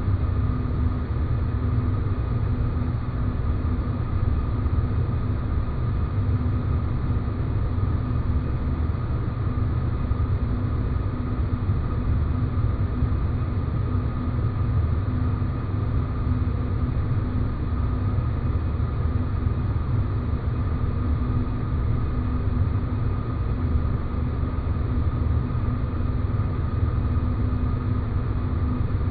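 Space-planet ambient noise: a steady deep rumble with two faint steady hums over it, one low and one higher.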